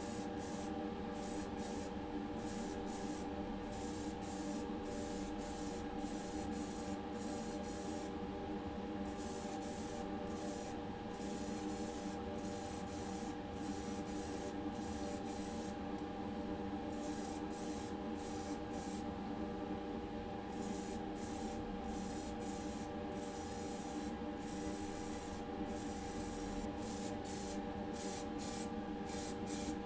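Primer being sprayed onto diecast model parts in many short hissing bursts, roughly one a second, over a steady mechanical hum with a few fixed tones.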